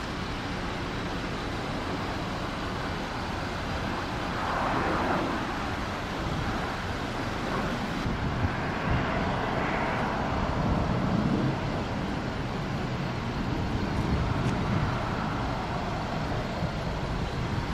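Steady rumble of vehicle traffic, swelling a few times as vehicles pass.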